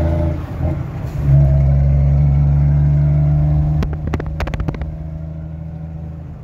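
Foden Alpha 420 truck's diesel engine running loud through a straight-pipe free-flow exhaust, heard from inside the cab. The note drops for under a second, then comes back louder and steady. About four seconds in there are a few sharp clicks, and the engine note then eases off.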